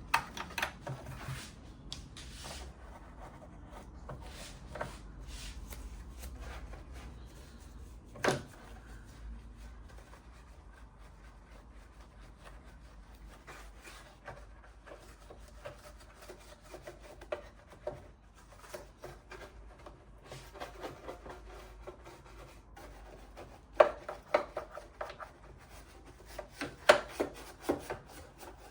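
Hand scrubbing and rubbing on the metal parts of a Wilesco D32 model steam engine during cleaning: irregular scraping strokes with scattered sharp knocks, one about eight seconds in and a cluster of louder ones near the end.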